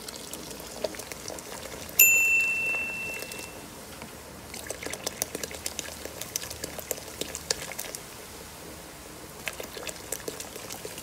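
Sprite poured from a plastic bottle into a pot of hot pork-rib broth, the stream splashing while the soda fizzes and crackles in the liquid. About two seconds in, a loud high ding rings out and fades over about a second and a half.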